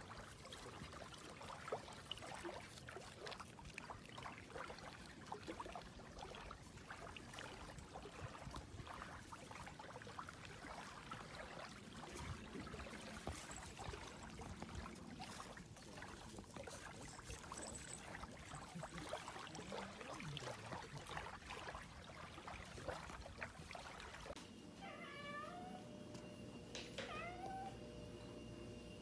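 Steady rustling and crackling of grass and soil as the cat moves about, then near the end a Ragdoll cat meows twice, short calls that bend up and down in pitch.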